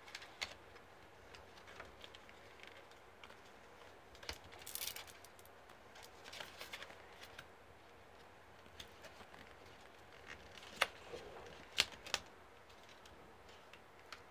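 Faint crinkling and crackling of a cardboard cockroach glue trap being handled and peeled from a cat's paw, with scattered rustles and three sharper snaps late on.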